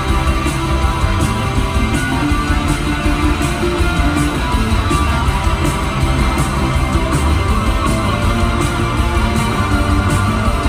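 Rock band playing live in an arena: electric guitars and keyboards over bass and drums, with steady cymbal strokes.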